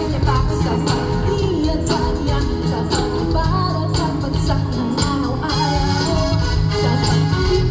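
Pop song with a lead singer over a band: a sung melody over bass and a steady beat with bright, regular high percussion like a tambourine or hi-hat.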